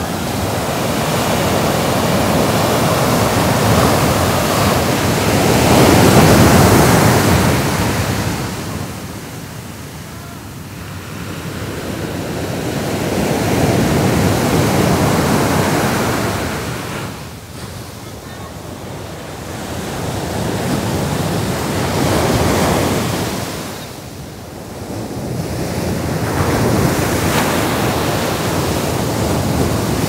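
Strong wind gusting through pine trees, swelling and dying away every several seconds, with wind buffeting the microphone.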